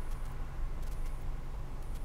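Steady low rumble of a car idling at a level crossing, with a short high-pitched ring about once a second from the crossing's warning bell as the booms lift after the train has passed.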